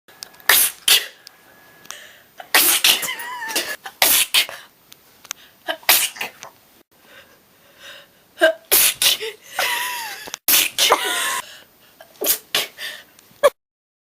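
A person sneezing over and over: about ten loud sneezes in quick succession, some drawn out into a cry that bends in pitch.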